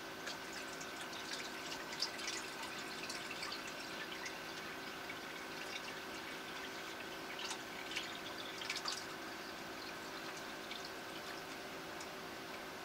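Water trickling and dripping from a tilted plastic bucket into an aquarium, poured gently, with small splashes bunched about two seconds in and again around eight to nine seconds. A steady low hum runs underneath.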